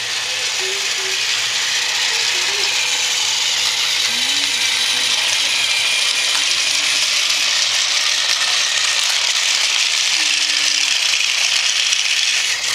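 Battery-powered toy train engine running along plastic track: a steady motor and gear whir with a rattling clatter.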